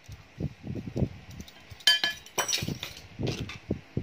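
A metal teaspoon clinking against a stainless steel bowl while salt is spooned onto shredded napa cabbage, with a sharp ringing clink a little under two seconds in and softer knocks of handling around it.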